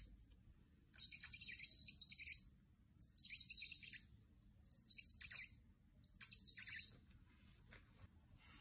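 Copic alcohol marker nib rubbing across paper while colouring in: four bursts of scratchy strokes, each about a half-second to a second and a half long, with short pauses between them.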